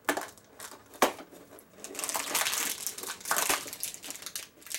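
Cardboard door of an advent calendar pushed open with a couple of sharp pops, then crinkling of packaging as a small figure is pulled out of its compartment.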